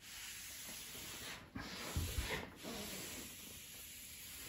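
Cloth scrubbing a stain on a quartz worktop with Bar Keepers Friend powder: steady rubbing, with a couple of dull knocks about two seconds in.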